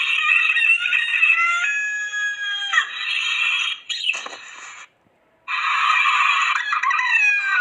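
A rooster crowing, several long pitched crows in succession, broken by a short pause about five seconds in.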